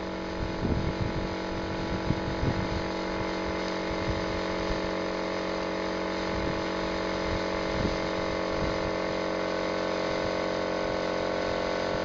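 Steady electric motor hum from the automated golf-ball cannon's machinery, with a few light clicks and knocks in the first few seconds.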